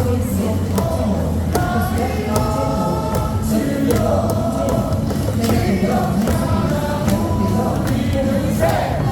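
Baseball stadium crowd singing a cheer song in unison over music played on the stadium speakers.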